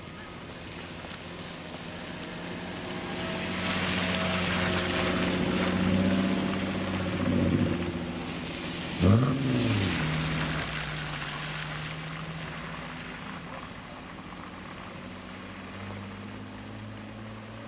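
BMW E46 3 Series cars pulling away slowly on a wet road, engines running with tyres hissing through standing water. About nine seconds in, one engine is blipped briefly, rising and falling sharply in pitch.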